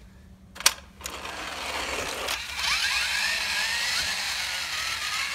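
Toy front loader's gear mechanism whirring as it is worked by hand on the carpet: a sharp click under a second in, then a whir that rises in pitch and holds steady.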